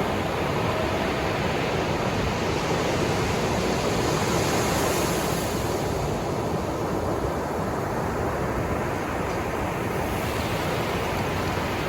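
Ocean surf: a steady wash of breaking waves, with one wave's hiss swelling about five seconds in and then ebbing away.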